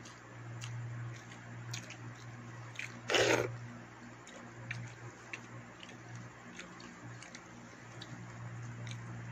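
A person eating rice with snail curry by hand: chewing and lip-smacking with small wet clicks, and fingers squishing rice on a steel plate. A short, loud noisy burst about three seconds in stands out, over a steady low hum.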